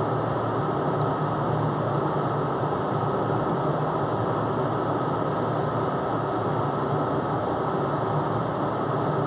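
Steady, unchanging drone of a ship's machinery running while the vessel lies at anchor.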